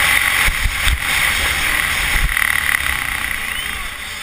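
Motocross bike running flat out, heard from an onboard camera, with wind rushing over the microphone and low bumps from the rough track. The noise eases off gradually toward the end.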